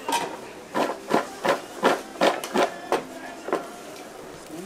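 Kitchen knife chopping onion on a wooden cutting board: a run of sharp strikes, about three a second, stopping shortly before the end.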